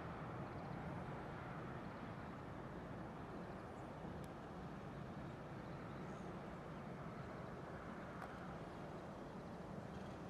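Steady outdoor background rumble, with a few faint high chirps and two soft clicks.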